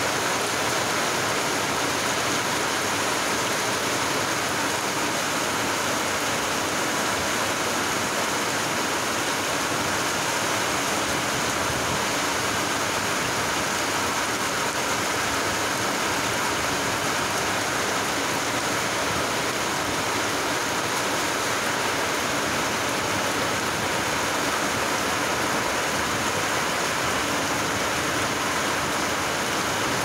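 Rain falling steadily onto the surface of a wide river: an even, unbroken hiss.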